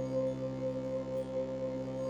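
Background music: a steady ambient drone of sustained, unchanging tones.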